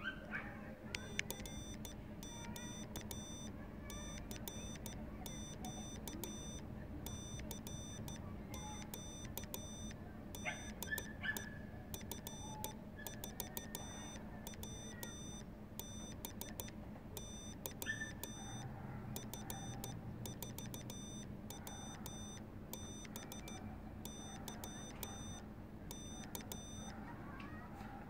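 Morse code being keyed on a Frog Sounds kit CW transceiver: faint, high-pitched beeps with a click at each key stroke, sent in repeating groups of dots and dashes. The keying stops near the end.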